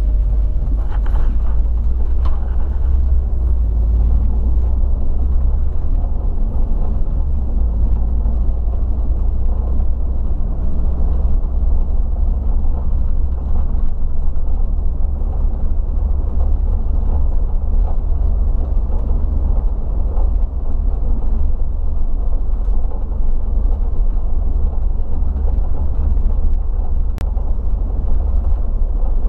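Bus engine and road noise heard from the driver's seat while driving, a steady deep rumble.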